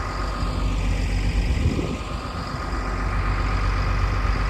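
Cat track loader's diesel engine idling steadily, with a thin steady whine above the low rumble.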